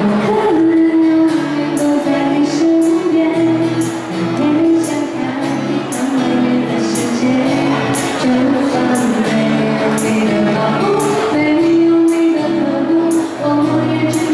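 A woman singing a pop song live into a microphone, with a tambourine jingling on the beat about twice a second.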